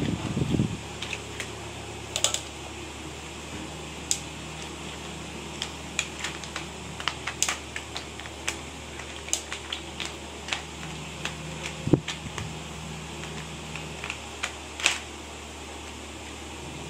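Irregular light clicks and taps, a few dozen scattered unevenly, the sharpest about twelve and fifteen seconds in, over a steady fan hum.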